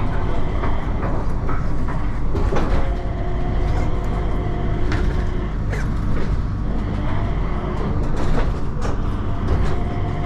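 Cabin noise of an airport people-mover train in motion: a steady low rumble with a faint whine and a few scattered clicks and knocks.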